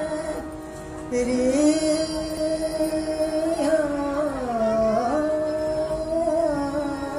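Live Indian classical singing heard through the stage loudspeakers: a singer holds long wordless notes, sliding and wavering between pitches. There is a brief dip about a second in, then the singing comes back louder.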